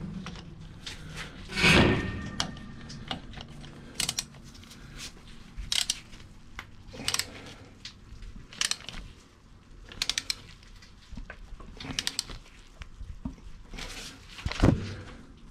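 Scattered clicks and light metallic knocks from hand-fitting and wrench-tightening the drain plug of a Nissan Pathfinder R51's front differential. The louder knocks come about two seconds in and again near the end, with quick runs of small clicks in between.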